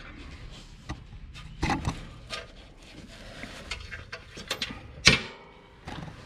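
Scattered light clicks and taps of small metal parts being handled at the end of a lawn tractor mower deck's anti-sway bar as a flat washer is fitted, with one sharp knock about five seconds in.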